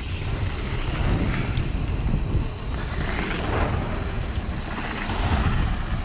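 Mountain bike tyres rolling fast over a gravel trail, with wind buffeting the microphone.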